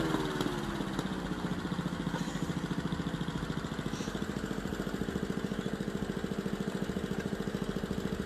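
A small engine idling: its revs drop over the first second, then it settles into a steady, even putter.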